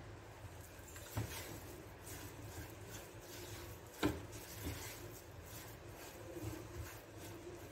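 Spatula scraping and stirring thick besan roasting in ghee in a nonstick kadhai: repeated soft scraping strokes, with a light knock against the pan about a second in and a sharper one about four seconds in.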